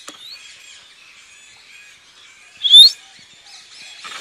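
One loud, brief, sharp rising whistle about three seconds in: a trainer's recall whistle, the cue that calls a pet lory back to his hand. Steady faint bird chirping continues underneath.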